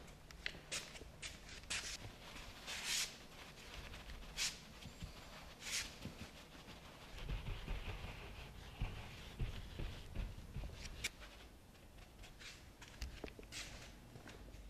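A cloth rag rubbing and wiping across a large painted canvas: short scraping swishes in the first few seconds, a stretch of steadier rubbing in the middle, and scattered light taps near the end.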